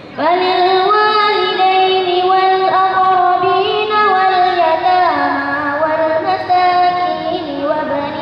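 A girl reciting the Quran from memory in melodic, ornamented chant, one long unbroken phrase that begins after a breath and winds up and down in pitch.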